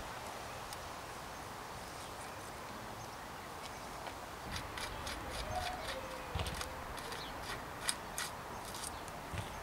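Light, irregular clicks and taps of hands and tools working on bicycle parts, thickening about halfway in, over a steady low hiss.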